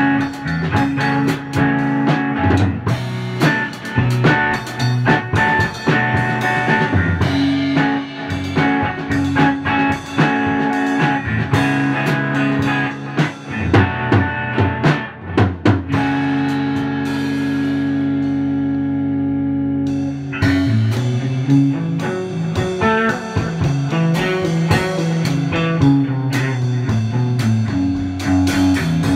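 Electric guitar, a Fender Stratocaster through a Fender Princeton Reverb amp, jamming with a drum kit. The drums drop out for a few seconds past the middle while the guitar holds notes, then come back in.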